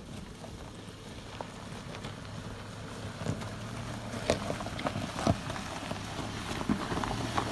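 A Subaru Forester SUV crawling toward the microphone over a loose rocky dirt road. Its tyres crunch on the stones with scattered sharp knocks, and the sound grows louder as it nears.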